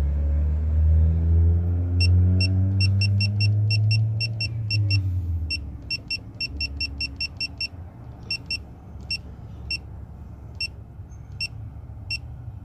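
Snap-on digital torque-angle wrench beeping in a long run of short, quick pips while a cylinder head bolt is turned through its final degrees. A low motor rumble rising in pitch runs under the first half and fades out about five seconds in.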